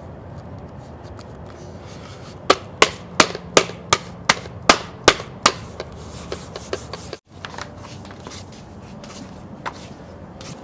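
A quick run of about nine sharp taps, roughly three a second, from handling an orbital polisher while a fine-grit sanding disc is fitted to its hook-and-loop backing pad. A few fainter knocks follow.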